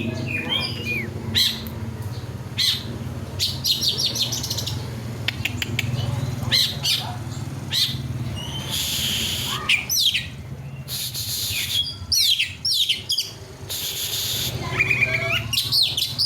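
Oriental magpie-robin (kacer) singing: rapid high whistled sweeps and clicking notes, broken by harsh rasping calls about nine and fourteen seconds in, over a steady low hum. The rough, harsh song is the kind used to goad other magpie-robins into singing.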